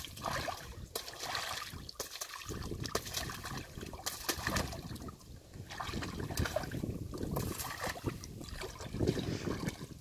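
Wet mud sloshing and splattering as baby elephants wallow and shove each other in a mud bath, in irregular splashes with no steady rhythm.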